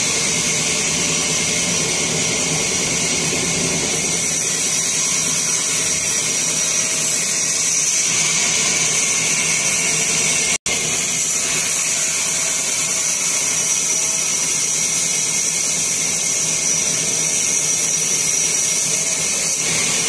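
Band sawmill running and ripping a teak log into planks: a steady, high-pitched machine whine mixed with the hiss of the blade cutting wood. It cuts out for an instant just past halfway.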